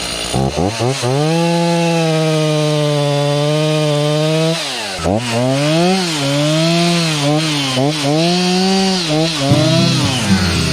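Two-stroke chainsaw running at high revs, its pitch held steady for about four seconds, then dropping sharply and rising and falling several times as the throttle is worked.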